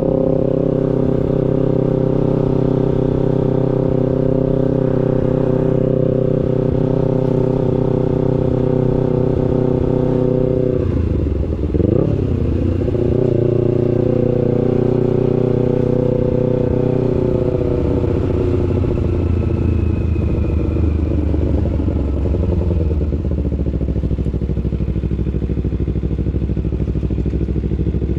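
250cc sport motorcycle engine running at a steady cruise. About eleven seconds in, the engine note drops sharply and climbs again, then settles back into a steady run.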